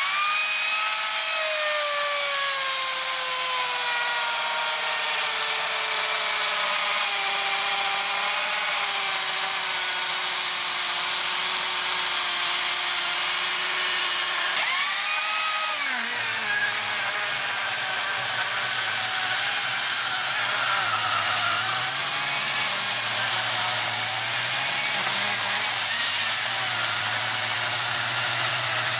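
Makita cordless electric chainsaw cutting through a wooden stump. The motor's whine sags slowly under load, rises briefly about halfway through, then drops and runs at a lower, rougher pitch.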